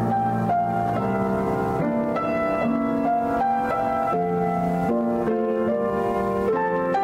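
Grand piano played solo: a melody of single notes over held chords, the notes changing about twice a second.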